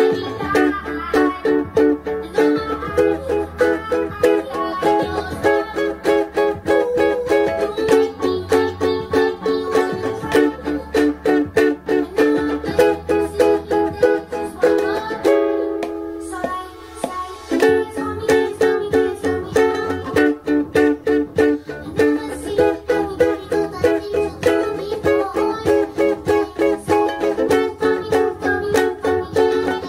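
Ukulele strummed in a steady rhythm through the chords F#m, D, E and C#m. Around the middle the strumming stops and a chord rings on for about two seconds before the rhythm picks up again.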